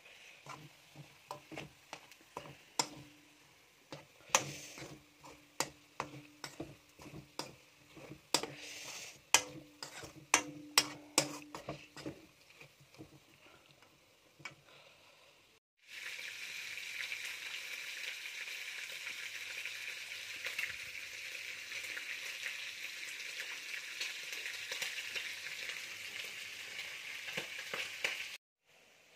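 A metal spoon stirring and scraping spiced pork and chicken around a wok, with sharp clinks about two a second for the first twelve seconds. After a cut, a steady sizzle of meat cooking in a hot, steaming pot, which stops suddenly near the end.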